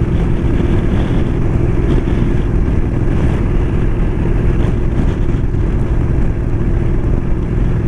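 Motorcycle running steadily at road speed: a constant engine drone under a steady rush of wind and road noise.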